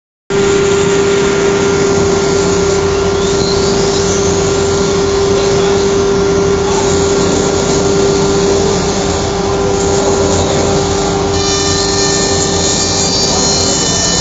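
Philicam F4 1325 CNC router running: a steady spindle whine over a loud, even rushing noise. About eleven seconds in, several higher steady tones join in.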